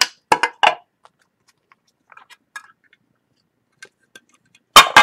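Clear hard plastic card cases and spacers being handled on a table: scattered sharp clicks and clacks, a few in the first second, faint ticks in the middle and two loud clacks near the end.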